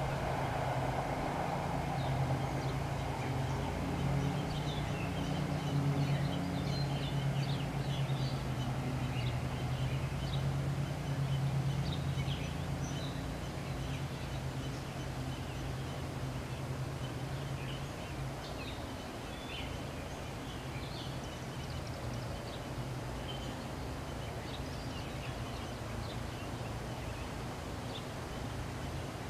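Small birds chirping now and then over a low, steady hum that fades out about two-thirds of the way through.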